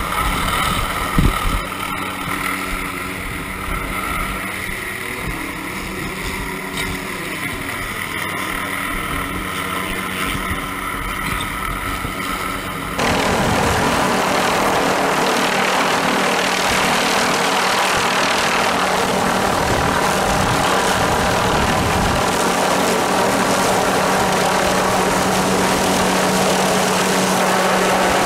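Helicopter hovering overhead while carrying a slung load on a long line: a steady rotor and turbine drone. About halfway through the sound abruptly becomes louder and noisier.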